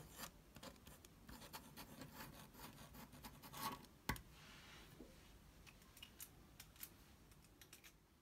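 Fine 0.5 mm gel pen writing cursive on paper: faint scratches and small ticks from the nib's strokes. A sharper click comes about four seconds in.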